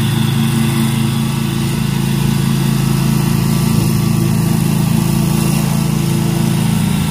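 Scag commercial walk-behind mower's engine running steadily at mowing speed as it cuts grass.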